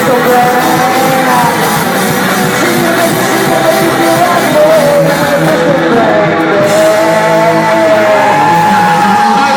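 Live rock band playing an instrumental stretch, a lead line with held, bending notes over guitar, bass and drums.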